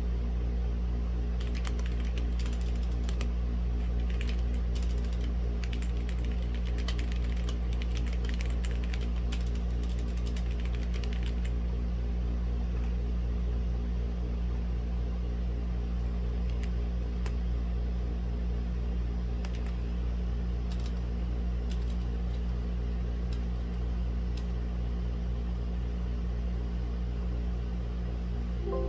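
Typing on a Womier/Gamakay K87 mechanical keyboard with linear red switches: a quick run of keystrokes for about ten seconds, then scattered keypresses that die away, all over a steady low hum.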